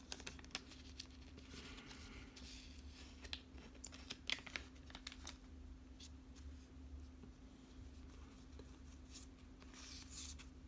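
Pokémon card booster pack being opened and its cards handled: faint, scattered crinkling and tearing of the wrapper and light ticks, over a steady low hum.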